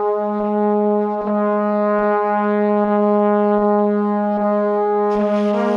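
Background music: one long held note over a soft steady beat, with more parts coming in near the end.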